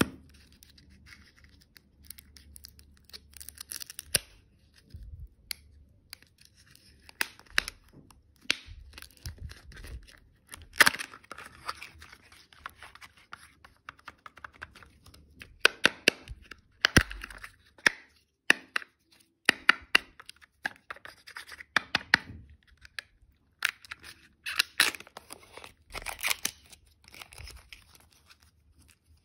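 Foil-and-plastic wrapping of a surprise-egg candy being torn and peeled by hand: irregular bursts of crinkling and tearing as the wrapper comes off and the foil lids are pulled from the egg's plastic cups, with sharp plastic clicks.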